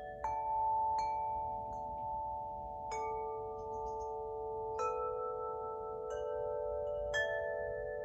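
Tuned wind chime, the Spring Wind Chime pitched for the wood element, struck about eight times at uneven intervals. Its notes ring on long and overlap into a sustained chord.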